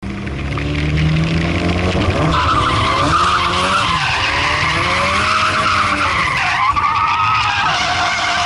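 Turbocharged SR20 four-cylinder of a Nissan S13 Silvia, heard from inside the cabin while drifting: engine revs rising and falling over a continuous, wavering squeal from the sliding rear tyres.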